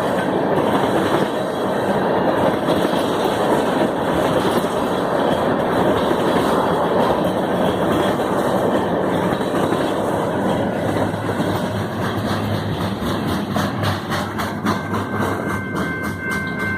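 Canadian Pacific freight train's cars rolling past at steady speed, wheels clacking rhythmically over the rail joints. A faint steady high whine joins near the end.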